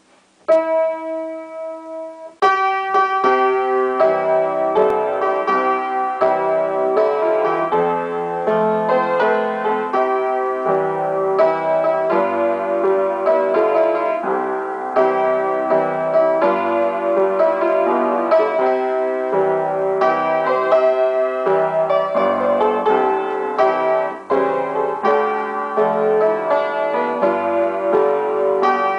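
Upright piano playing a hymn in chords. One chord rings on its own briefly, then steady chordal playing begins about two seconds in, with a short lull a little before the end.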